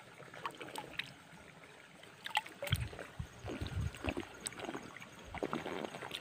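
Shallow pond water splashing and trickling in short, irregular sloshes as a hand gropes through it picking snails, with a few small knocks.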